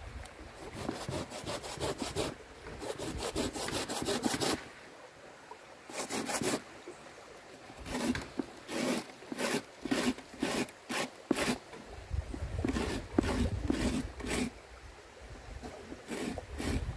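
Repeated rasping, scraping strokes: quick runs of rapid strokes at first, then slower single strokes two or three a second.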